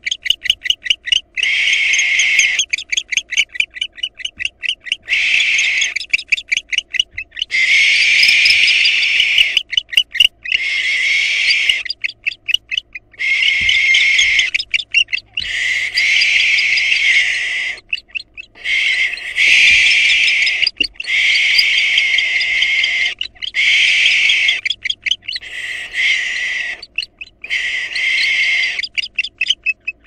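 Barn owls giving long, harsh hissing screeches of one to two seconds each, over and over. Between them come rapid runs of short clicking calls.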